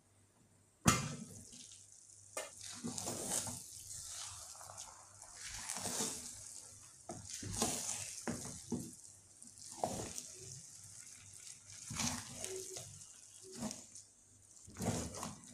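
A sharp metal clank about a second in as the aluminium pot lid comes off, then a wooden spatula stirring and scraping thick, wet banga rice in the aluminium pot in irregular strokes.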